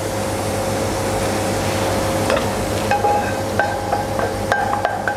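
Hot oil with fried shallots and garlic poured from a frying pan into a metal strainer, a sizzling hiss; from about two seconds in, a wooden spatula scrapes and knocks against the pan and strainer, giving a string of short metallic rings.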